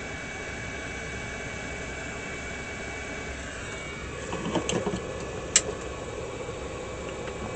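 Heat gun blowing steadily to shrink heat-shrink tubing over a soldered wire splice. Its steady whine changes a little past halfway, then there is a brief clatter and one sharp click.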